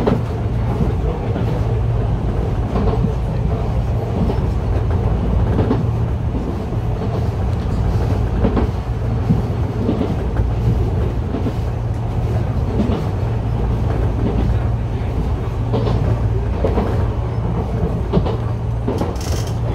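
Enshu Railway 2000 series electric train running along the line, heard from inside the front car: a steady low rumble with irregular clicks and knocks from the wheels and track.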